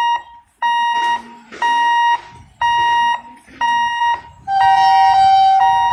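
Electric level-crossing warning alarm beeping about once a second, each beep about half a second of a shrill tone. About four and a half seconds in, a longer, lower horn tone sounds over it for about a second.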